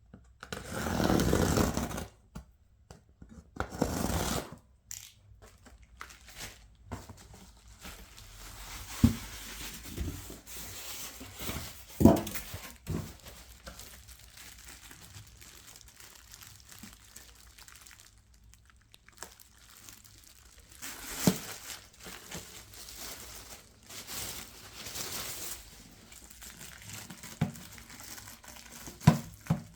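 Packaging being handled: crinkling and tearing, with a few sharp knocks along the way.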